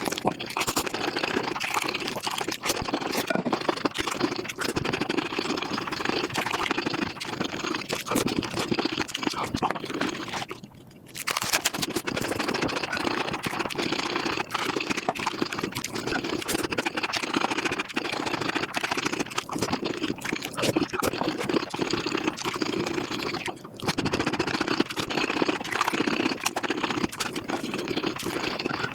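Mukbang eating sounds played back at five times speed: a dense, fast stream of chewing crunches, smacks and clicks. It drops away briefly about a third of the way in, and again for a moment later on.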